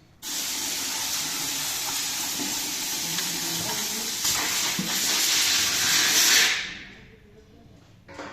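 A loud steady hiss that starts abruptly, grows a little louder toward the end and dies away after about six and a half seconds.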